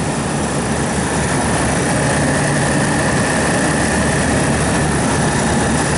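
Old Liebert rooftop refrigeration unit running: its semi-hermetic compressor and condenser fans make a steady hum and rush with a faint steady high whine. The system is low on refrigerant and the compressor is running very hot.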